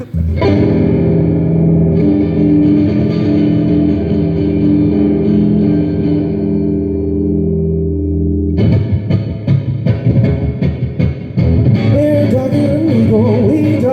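Electric guitar played live through effects. A held chord rings for about eight seconds, then rhythmic strumming starts, and a wavering melody line joins near the end.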